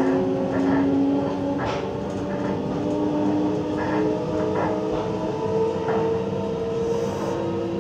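On-board running sound of a Nagoya Municipal Subway 7000 series train: a steady rumble with a whine of several tones that slowly rises in pitch as the train gathers speed. A few short clicks from the wheels on the track come through it.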